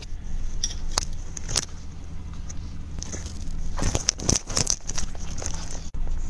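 Fingers handling a clip-on lavalier microphone: scattered rubbing clicks in the first two seconds and a cluster of louder knocks and scrapes about four seconds in, over a low steady hum.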